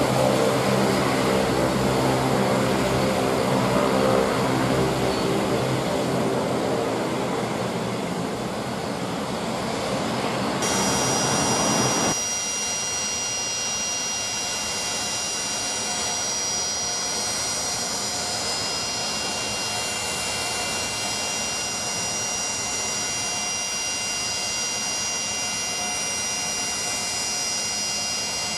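Bombardier Dash 8 Q400 turboprop taxiing close by, its two Pratt & Whitney PW150A engines and propellers giving a steady low drone. About 12 seconds in the sound changes suddenly to a quieter, more distant engine sound with a steady high whine.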